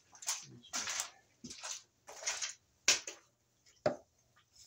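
Rustling noises from hand tools being sorted and handled, likely while a flathead screwdriver is fetched. They end in two sharp clicks, the second with a brief metallic ring.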